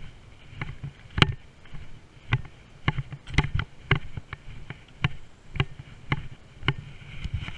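Footsteps on an asphalt path, about two steps a second, each a sharp thump carried through a chest-mounted camera. A faint steady high buzz sits behind them.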